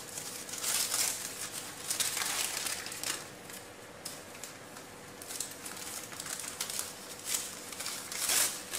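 Rustling and crinkling with light clicks and taps as small cardboard matchboxes are handled and set down on a tile floor. There is a busier cluster of clicks near the end.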